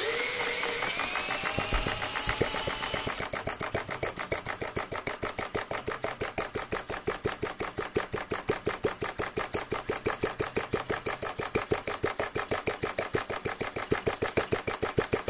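A cordless drill spins the Retrol model four-stroke petrol engine over, its whine dropping in pitch, and cuts off about three seconds in as the engine catches. The model engine then runs on its own with a fast, even beat of firing pops.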